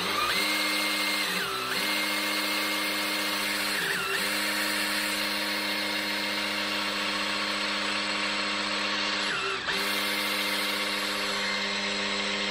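Cordless drill spinning a priming shaft in the distributor hole of a Chevy 350 small-block, driving the oil pump to prime the engine against about 65 psi of oil pressure. The drill runs steadily, and its whine sags briefly in pitch three times.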